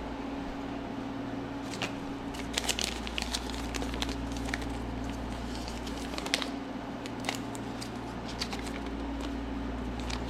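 Spark plug wires being handled and sorted: scattered light clicks and rustles, over a steady low hum.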